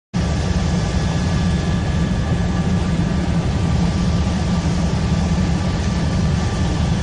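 Helicopter cabin noise: a loud, steady drone of engine and rotor, with thin high whining tones above it.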